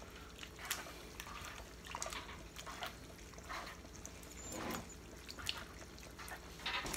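Canned whole San Marzano tomatoes being crushed by hand in a plastic bowl: irregular wet squelches and drips of juice as the fingers squeeze them apart.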